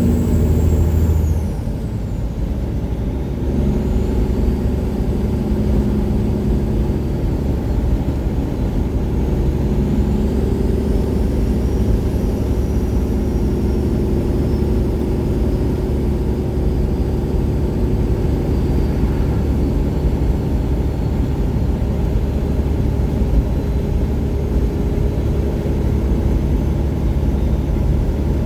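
Detroit Series 60 diesel of a 1999 Peterbilt 379 running under way through 7-inch straight pipes, with a steady deep exhaust note. A high turbo whistle falls away as the engine drops in level about a second and a half in, and a fainter turbo whistle rises and falls through the middle.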